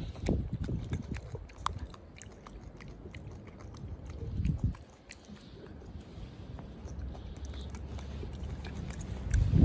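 Golden snub-nosed monkeys eating: scattered crunchy clicks of chewing and handling food over a low rumble.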